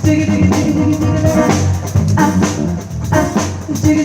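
Instrumental music with drum kit and guitar playing a steady beat.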